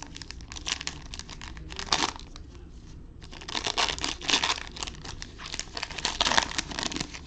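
A trading-card pack wrapper being crinkled and torn open, in two bouts of rapid crackling, the second longer and louder.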